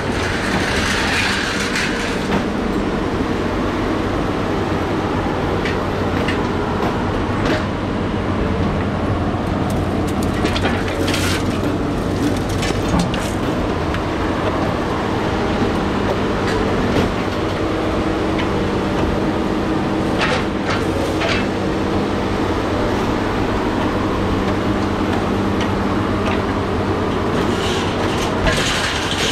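Scrap material handler's engine and hydraulics running steadily, a constant hum with a few steady tones, while its orange-peel grapple works a pile of scrap metal and appliances, giving occasional sharp metallic clanks.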